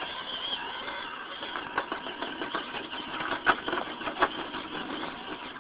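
Electric motor and gear train of a Losi Night Crawler RC rock crawler whining as it climbs over rocks, the pitch wavering with the throttle. Several sharp knocks, loudest in the second half, as its tyres and chassis strike the rocks; the sound cuts off suddenly at the end.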